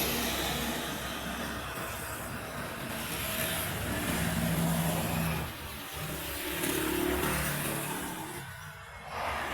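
Traffic passing on a toll road: vehicles going by one after another, their tyre and engine noise swelling and fading. A low engine hum rises twice, about four and seven seconds in, as heavier vehicles pass.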